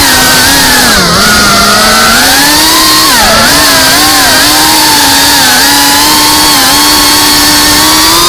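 FPV quadcopter's brushless motors and propellers whining, recorded from the onboard camera. The pitch dips about a second in, wavers, holds mostly steady, then climbs near the end as the throttle changes.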